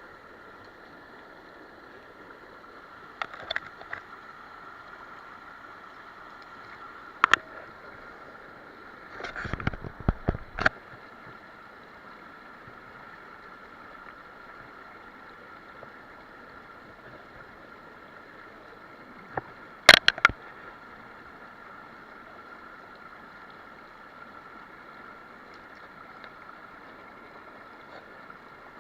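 Mountain stream flowing steadily over rocks, with a few sharp clicks and knocks: a pair about 3 s in, a loud one about 7 s in, a cluster around 10 s, and a loud double knock about 20 s in.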